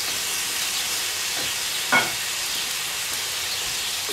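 Ground beef, cabbage and mushrooms sizzling in a cast iron pan as they are stirred with a wooden spatula, with one sharp knock of the spatula against the pan about halfway through.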